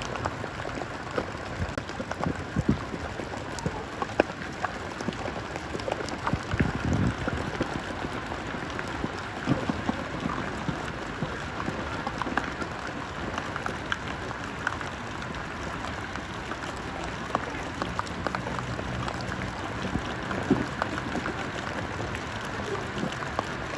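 Steady rain pattering, with many small scattered ticks of drops.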